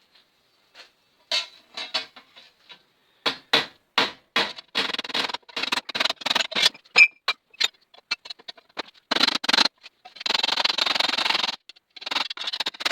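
Hand tools working a sheet-steel repair panel: a run of sharp taps and knocks, then two long scraping strokes near the end.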